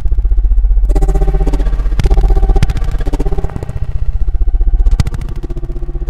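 Electronic music: a loud, buzzing synthesizer bass with held synth chords above it.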